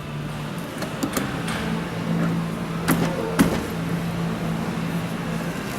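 A few sharp plastic clicks and knocks as a massage chair's shoulder air panel is handled and pressed onto its mounting posts, over a steady low hum.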